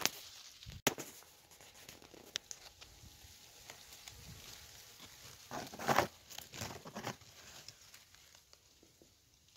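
Dry raspberry leaves rustling and crackling as the canes are brushed, with a few sharp clicks near the start; the loudest rustle comes about six seconds in, with another around seven seconds.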